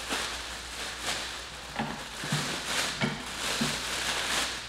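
Clear plastic bag crinkling and rustling as it is pulled off and bunched up by hand, coming in uneven surges.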